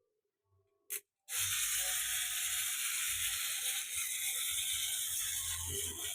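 Clockwork spring motor of a small wind-up toy train whirring steadily as the spring unwinds, starting after a single click about a second in.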